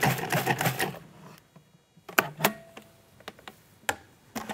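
Food processor motor running, blending mango and yogurt, then stopping about a second in. After it, a few sharp clicks and knocks.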